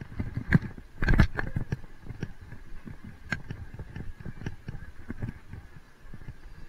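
Mountain bike rolling over wet asphalt with a low rumble, its frame and parts rattling and knocking over bumps, the loudest knocks about a second in.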